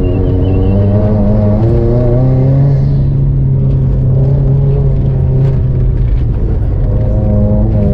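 Car engine heard from inside the cabin while driving on a dirt course, its note stepping up in pitch about two seconds in, holding, then dropping back about six seconds in, over a steady low rumble of tyres on dirt.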